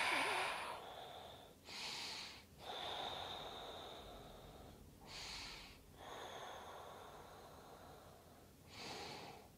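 A woman's deep breathing, close and audible: about three slow breath cycles, each a short, louder breath followed by a longer, quieter one. A faint thin whistle runs through some of the longer breaths.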